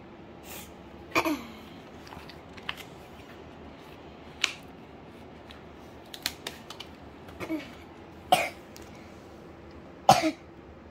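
Sticker sheets and a paper play board being handled: a scattered series of short, sharp paper crinkles and taps as stickers are peeled off and pressed down, the loudest one near the end.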